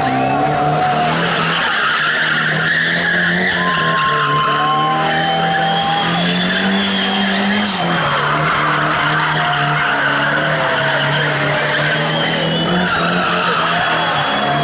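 Nissan 180SX drifting in tight circles, its engine held at high revs in a steady note that dips briefly and climbs again about eight seconds in, while the rear tyres squeal as they spin and slide.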